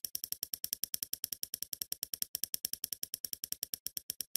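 Prize-wheel spinner sound effect: rapid clicking, about ten ticks a second, slowing steadily as the wheel winds down.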